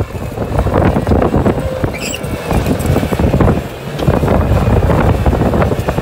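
Bobcat compact track loader's diesel engine working under load as it pushes dirt and old tyres with its bucket, with repeated knocks and clatter from the bucket, tracks and debris.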